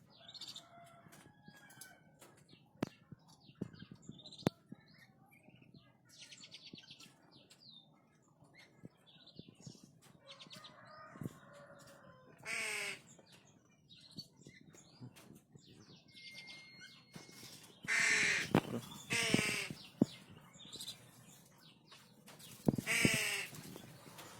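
Black-winged stilt giving harsh, yapping calls in short bouts, the loudest about halfway through, around three-quarters of the way and near the end, with fainter calls and scattered clicks before them.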